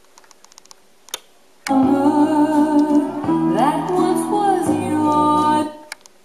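A record playing on a Technics SL-5 linear-tracking turntable: after a few small clicks, music with singing starts abruptly about a second and a half in and cuts off suddenly about four seconds later.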